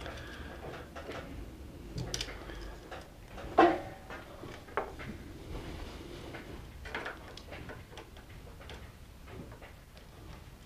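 Scattered light clicks and taps of plastic and metal parts being handled, as the spring-steel mounting piece of a Designjet plotter's encoder strip is pulled into place. A sharper knock about three and a half seconds in.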